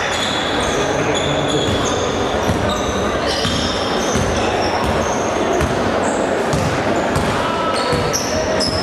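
Sneakers squeaking on a hardwood basketball court in many short high chirps, with the ball dribbled in low thuds and voices of players and spectators filling the gym hall.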